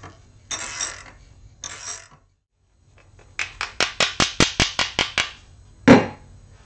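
Hand tools being handled on a benchtop milling machine. Two short scraping rustles come first, then after a brief break a quick run of about ten sharp metallic clicks over two seconds, and one louder knock near the end.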